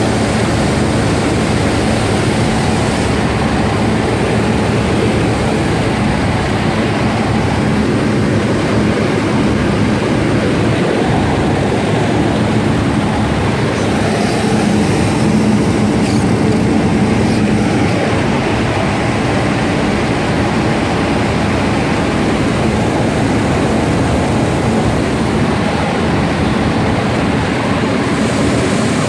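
Belt press running: a steady, loud machinery noise from its turning rollers and drive, with a low hum underneath.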